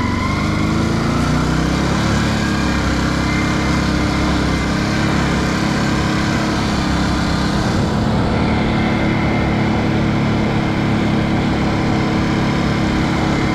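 Can-Am Outlander 570 ATV's V-twin engine running steadily while the quad is ridden, its pitch rising over the first couple of seconds and then holding.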